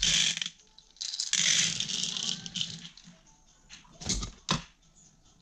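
Dry dog kibble poured from a bowl onto a ceramic plate, rattling in a short burst and then a longer pour lasting about a second and a half. Two sharp knocks follow about four seconds in.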